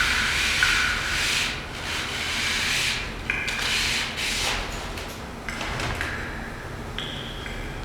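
Ancient glacial ice scraped and rubbed, giving a hissing rasp with high squealing tones that step up and down in pitch, and a few sharp clicks.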